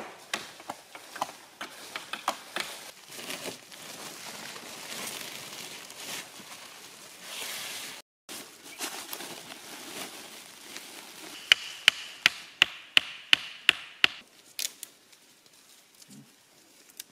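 Wood being struck, with rustling in dry leaf litter: scattered knocks in the first half, then, past the middle, a quick run of about ten sharp knocks at about four a second, the loudest part.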